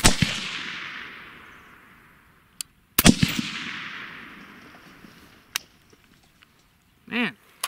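Suppressed AR-15 in .223 Wylde firing two shots about three seconds apart, each shot followed by a long echo that fades over about two seconds.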